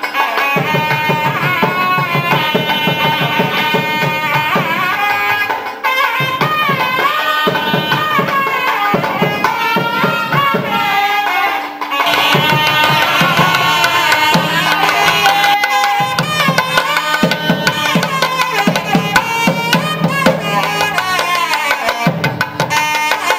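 Nadaswaram playing an ornamented, gliding melody, accompanied by rapid thavil drum strokes over a steady drone.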